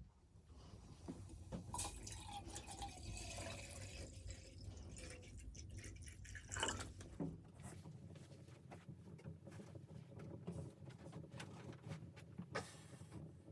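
Faint sound of liquid being handled, dripping and pouring, with scattered small clicks and knocks.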